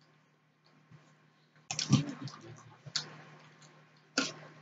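A knock and a few sharp clicks as a stainless steel tumbler is picked up off the table and raised to the mouth, over a faint steady electrical hum. The knock comes about a second and a half in and is the loudest sound; the clicks follow about a second apart.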